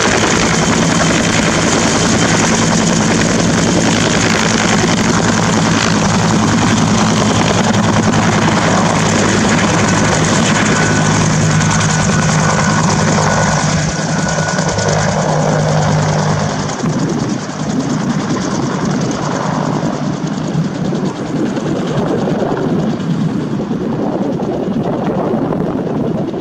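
Bell UH-1 (Huey)-type turbine helicopter with a two-bladed main rotor, running loud and steady close by with a constant low drone. About two-thirds of the way in the sound changes to a rougher, somewhat quieter rush as the helicopter is heard in flight overhead.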